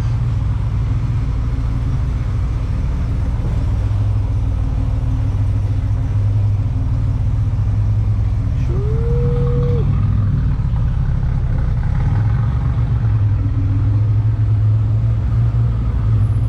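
Buick Grand National's turbocharged 3.8-litre V6 running steadily at low speed as the car is driven in, a deep drone that grows slightly louder in the second half. About halfway through, a short single tone rises, holds for about a second and stops.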